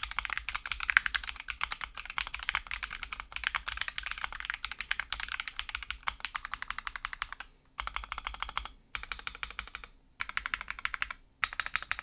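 Typing on an Akko ACR Pro Alice Plus mechanical keyboard, stock, with an acrylic case, gasket mount, plate foam and a polycarbonate plate. Quick runs of keystrokes with a few brief pauses in the second half.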